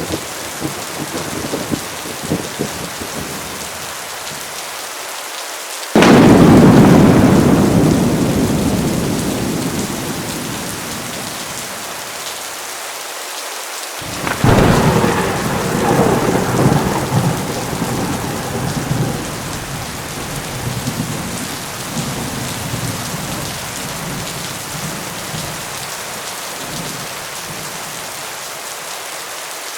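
Heavy rain falling steadily through a thunderstorm, with two peals of thunder. The first, about six seconds in, is a sudden loud clap that rumbles away over several seconds; the second comes about fourteen seconds in and rolls on for many seconds.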